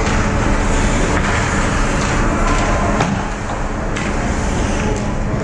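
Ice hockey play at the net: skates scraping the ice and a few sharp clacks of sticks and puck, over a steady low rumble of rink noise.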